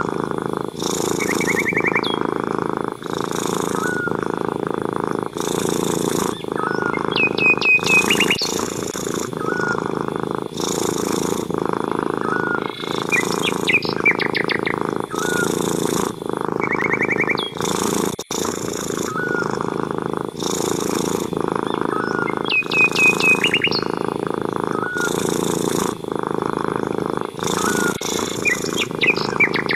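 Domestic cat purring steadily, in a cycle of about one pulse a second. Small birds chirp and trill in the background every few seconds.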